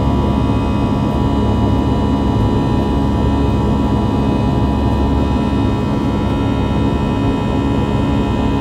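Airbus A320 jet engines at climb thrust just after takeoff, heard from inside the cabin beside the wing: a loud steady drone with a few held tones, the low rumble easing slightly about five seconds in.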